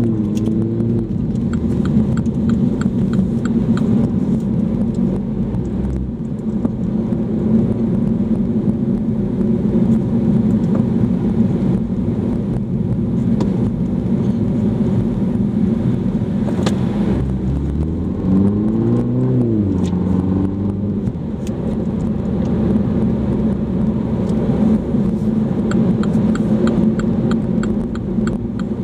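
A Mini Cooper S (F56) 2.0-litre turbocharged four-cylinder engine heard from inside the cabin, humming steadily while driving. About seventeen seconds in, the engine pitch rises as the car accelerates, then falls as it eases off. A faint regular ticking comes a few seconds in and again near the end.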